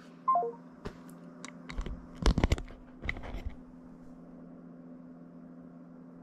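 A phone's short three-note falling beep as the call ends, then a run of clicks and knocks from the phone and camera being handled on a desk, over a steady low hum.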